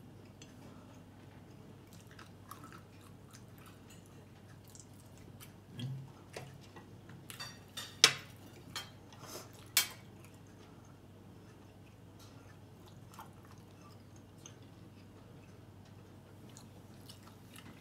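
A person chewing food quietly while eating steak, with a few sharp clicks of a fork on a ceramic plate in the middle, the loudest about eight seconds in.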